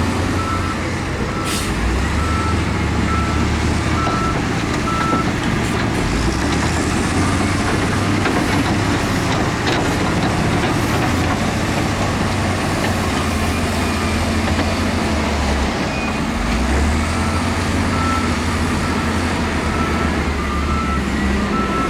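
Heavy diesel earthmoving machinery running under load, a steady deep engine rumble. A reversing alarm beeps at a regular pace through the first few seconds and starts again near the end.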